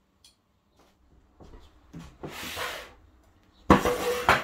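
Cloth rustling, then about three and a half seconds in a loud knock and scrape as a small tabletop sleeve ironing board is moved on a wooden table.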